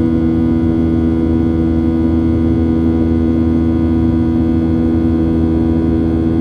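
Boeing 737-800's CFM56-7B turbofan engines during the climb, heard inside the cabin over the wing: a steady loud drone with a low rumble and a strong, even hum.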